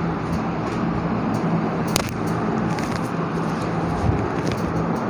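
Steady background noise with a low hum, and one sharp click about two seconds in.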